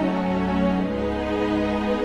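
Slow, sad orchestral music with long held chords over a low sustained bass.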